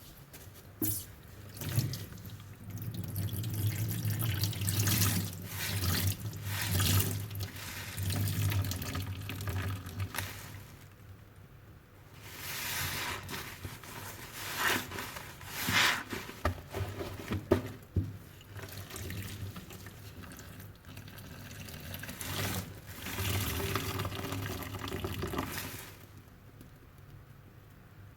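A soapy sponge being squeezed and rinsed under running tap water in a sink. It goes in irregular swells of splashing and sloshing, with brief lulls about eleven seconds in and near the end.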